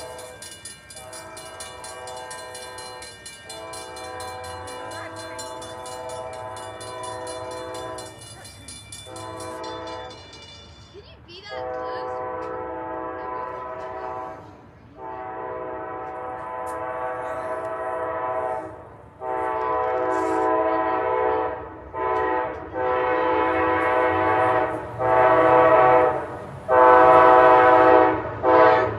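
An Amtrak locomotive's horn sounds a series of long and short blasts as the train approaches a grade crossing, growing much louder toward the end. A railroad crossing bell rings alongside it and stops about ten seconds in.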